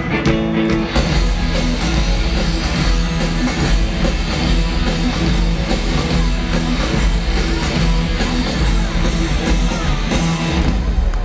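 Live punk rock band playing at full volume: distorted electric guitars, bass and drums over a concert PA.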